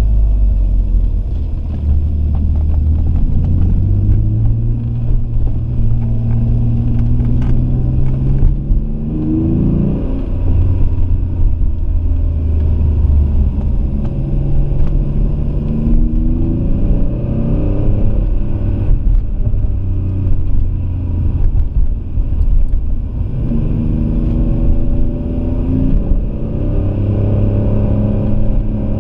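Alfa Romeo 166 3.2 V6 engine heard from inside the cabin while driving, its note climbing and dropping back three times as the car speeds up and eases off.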